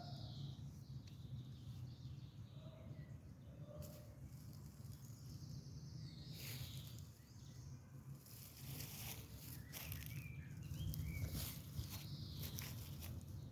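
Wood fire crackling, with scattered sharp pops that come in clusters in the second half, over a low steady rumble. A few short bird chirps sound near the end.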